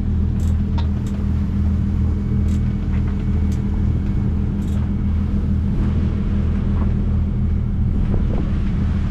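Sailboat's inboard diesel engine running steadily under power, a loud, even low hum.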